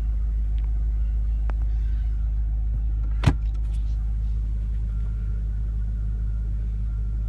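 The M5's 4.4-litre twin-turbo V8 idling, a steady low rumble heard from inside the cabin, with one sharp click about three seconds in.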